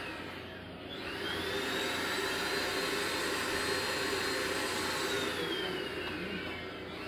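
An electric motor whines up to speed about a second in and runs steadily with a rushing noise, then winds down over the last couple of seconds.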